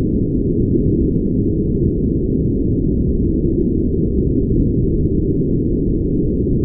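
Continuous brown noise: a steady, deep, even rush of noise with no high end, unchanging throughout.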